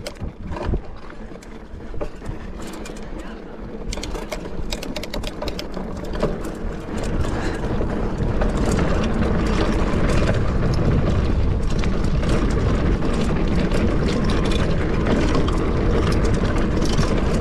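Mountain bike rolling over bare rock, with tyre noise, rattling and clicking from the bike and a rumble of wind on the camera microphone. It grows louder until about eight seconds in, then holds steady.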